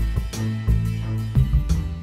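Instrumental background music with a steady beat over held bass notes.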